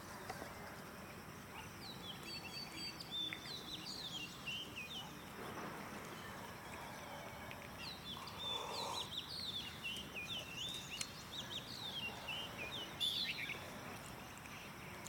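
A songbird singing in two long runs of quick, twittering chirps, about two seconds in and again from about eight seconds, over steady outdoor background noise.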